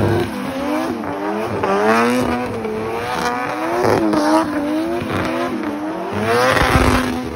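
Toyota 1JZ straight-six in a BMW E36 drift car, revving up and down repeatedly as it holds a drift, with tyre squeal and skidding hiss. The car passes close by near the end, briefly louder.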